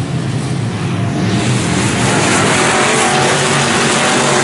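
Dirt-track sportmod race cars' V8 engines running, getting louder from about a second and a half in as the cars come past.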